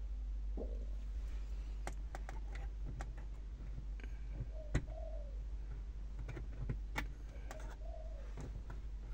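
Small metallic clicks and taps as a festoon LED bulb is pressed into the spring clips of a car's dome-light fixture, one sharper click about halfway through. A dove coos briefly a few times over a low steady hum.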